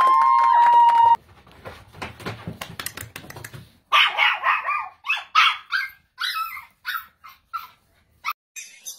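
A long held animal cry in the first second, then small fluffy white puppies yapping at each other in a quick run of short, high-pitched yips and barks.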